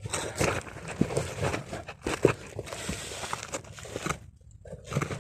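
Rustling and crunching of dry leaves and twigs, with small snaps, as someone clambers through undergrowth. It stops briefly about four seconds in, then starts again.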